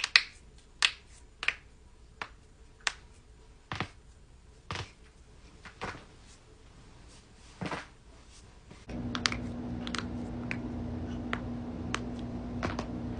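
Human joints cracking: a series of sharp single pops, about nine spread over the first eight seconds. About nine seconds in, a steady low hum comes in, and more pops follow over it, some close together.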